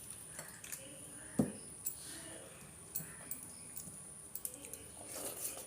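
Close-up eating sounds of rice with dal and vegetable dishes: scattered soft clicks, squishes and chewing, with one low thump about a second and a half in. A steady high-pitched whine runs underneath.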